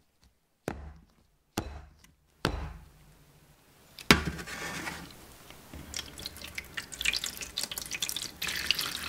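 Three sharp knocks as the metal cake pan of batter is handled, then a clunk about four seconds in as it is set down in the oven, followed by water pouring and splashing into the oven tray around the pan for a water bath, getting louder toward the end.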